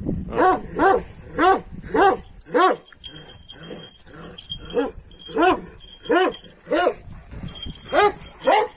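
A dog barking over and over, about two barks a second, each bark rising and then falling in pitch, with a short lull about three seconds in.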